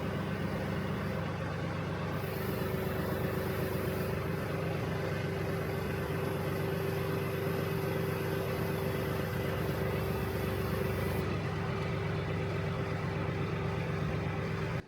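Tractor engine running steadily, with a steady whine above the low engine note.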